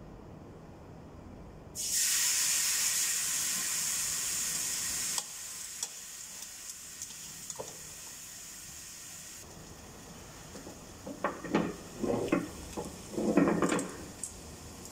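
Marinated chicken laid into a hot cast-iron grill pan over a gas burner, starting a loud sizzle about two seconds in that eases after a few seconds into a quieter steady sizzle. Near the end, a few short scrapes and knocks of metal against the pan.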